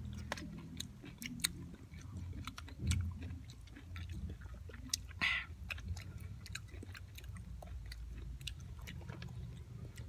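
A person chewing and biting whole raw calamansi, with many small wet clicks and mouth smacks. There is a short breathy sound about five seconds in, over a steady low hum.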